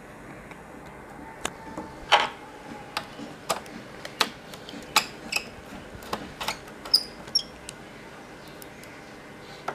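Small Phillips screwdriver turning out the small screws that hold a laptop LCD panel in its frame: a dozen or so irregular sharp clicks of metal on metal, with a brief faint squeak near the end.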